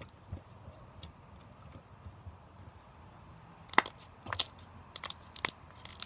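Slime being worked and stretched by hand, with faint soft sounds at first. From a little over halfway comes a run of sharp sticky clicks and pops.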